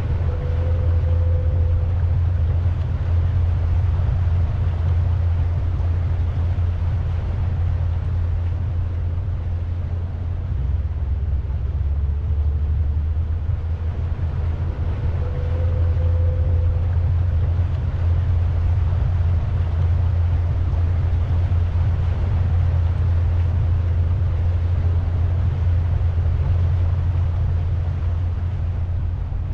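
Pontoon boat's motor running steadily under way, a continuous low drone with no change in pitch.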